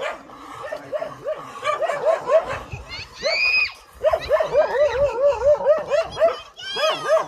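Street dogs barking in quick repeated volleys of short yappy barks, with one higher-pitched yelp about three seconds in; they are barking at leashed pit bulls walking past.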